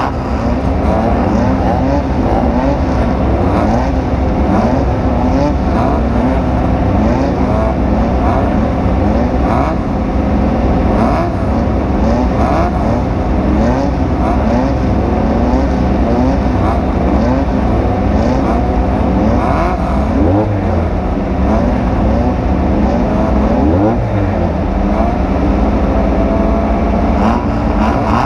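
Off-road desert race vehicle's engine running hard, its pitch climbing and dropping again and again, roughly once a second, as the throttle is worked. Scattered knocks sound through it.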